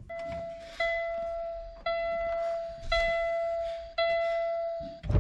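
A truck's dashboard warning chime sounds: one clear tone repeated five times in a row, each lasting about a second and starting sharply.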